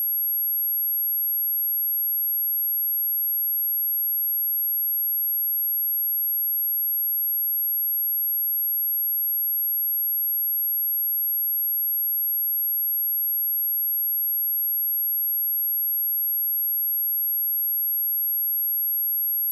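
A steady, high-pitched pure sine tone at 11517 Hz, a test tone played through a speaker to test it and to shake out water and dust.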